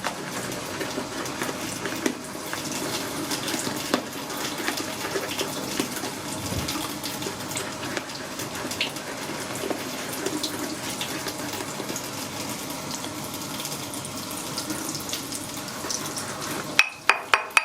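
Synthetic shaving brush whipping shave soap lather in a bowl: a steady wet swishing with small clicks. Near the end come a few sharp knocks, the brush tapped against the bowl to knock soap off it.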